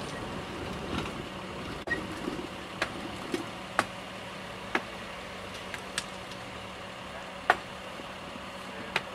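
Sledgehammer blows on a freshly poured thermite rail weld, knocking away the excess metal: sharp metallic knocks at irregular intervals, roughly one a second. A steady engine idling hum runs underneath.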